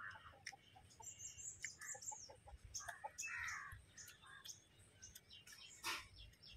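Faint outdoor birdsong: birds chirping and calling, with a louder call about three seconds in. Small scattered clicks, and one sharp click shortly before the end.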